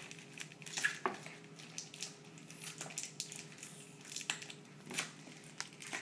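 Plastic wrapping crinkling and rustling in a child's hands as he works it off a toy pack, with small irregular clicks and taps.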